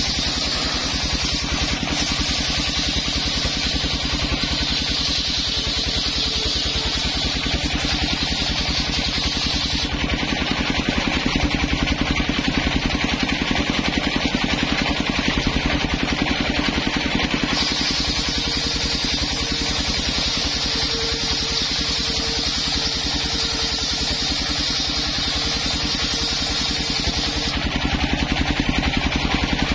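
Homemade table circular saw ripping coconut-wood beams. The big blade whines through the wood in two long cuts, one from the start to about ten seconds in and another from a little past halfway to near the end. Under it the engine that drives the saw runs steadily throughout.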